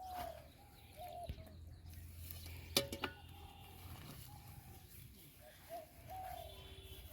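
Bird calling over and over in short, even-pitched notes, with a low steady background hum. A single sharp click or knock with a brief ring about three seconds in.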